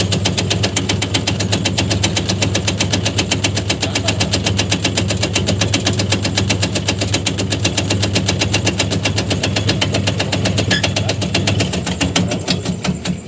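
A motor-driven tobacco shredding machine running, its blade chopping leaf in a rapid, even chatter of strokes over a steady drone. The drone fades near the end.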